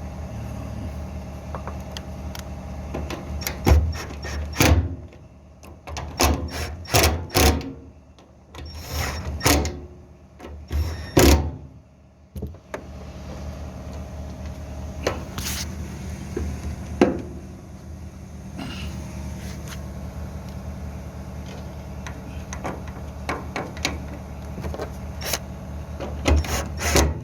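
Hand tools and nuts clicking and knocking on metal as nuts are fitted to the fuel pump's mounting. A flurry of sharp knocks comes in the first half, and scattered clicks follow later, over a steady low hum.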